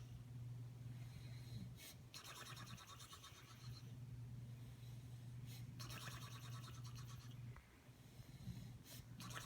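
A man snoring: a faint, raspy, fluttering breath about every four seconds, each lasting about a second and a half, over a steady low hum.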